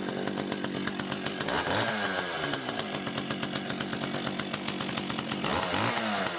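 An old Echo two-stroke chainsaw engine running on its own with the choke off, idling and twice revved up and back down, once about a second and a half in and again near the end.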